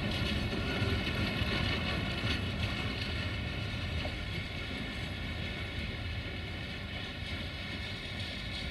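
Container freight wagons rolling away along the track, their wheel and rail rumble fading steadily, with a ringing of several steady tones above it.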